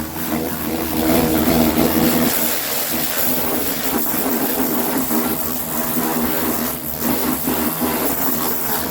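Pressure washer running, its pump giving a steady hum under the hiss of the water jet spraying against the underside of a lawnmower deck.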